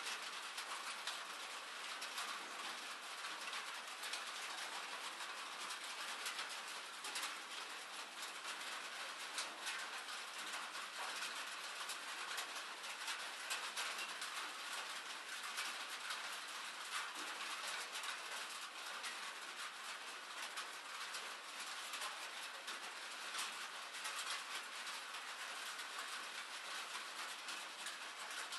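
Steady rain, a dense even patter of many small drops ticking throughout.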